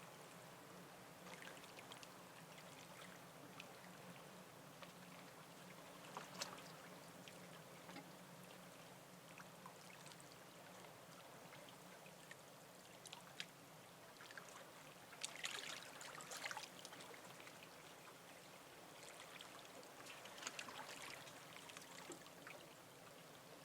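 Faint small waves lapping and splashing at the water's edge, a few irregular splashes with a denser cluster about two-thirds of the way through, over a low steady hum.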